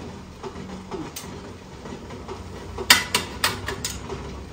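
Aluminium momo steamer tiers and pot clanking as they are handled: a faint click about a second in, then a quick run of about five sharp metal knocks, the first the loudest, over a steady low hum.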